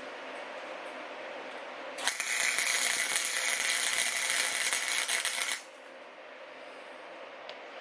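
Electric arc welder crackling for about three and a half seconds, starting about two seconds in and cutting off suddenly. A short bead of weld is being laid onto a broken bolt stub in an engine block, to build it up so it can be gripped and turned out.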